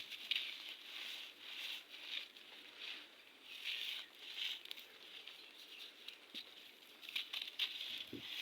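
Red sand crumbling: a run of soft, gritty crumbles and small crackles in irregular bursts, easing off for a couple of seconds past the middle before picking up again near the end.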